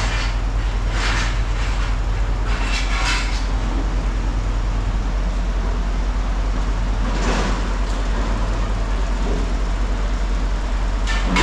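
A steady low engine rumble, with a few brief louder noisy surges about one, three and seven seconds in.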